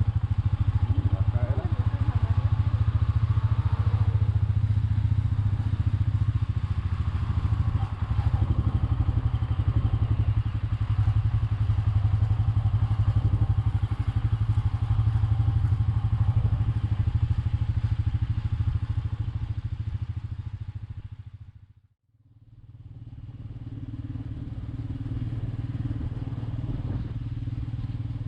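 Royal Enfield Meteor 350's single-cylinder engine running steadily while riding. About three-quarters through, the sound fades out to silence and fades back in.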